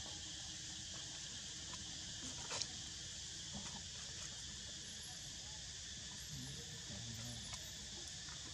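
Steady chorus of insects, a continuous high buzzing hiss, with a few faint clicks and one sharper click about two and a half seconds in.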